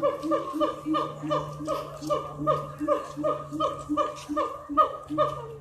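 A monkey calling in a fast, even series of short, laughter-like hoots, about three to four a second, each note dipping slightly in pitch.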